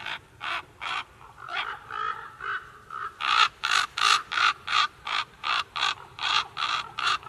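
A long run of harsh, caw-like animal calls, about three a second, growing louder about three seconds in.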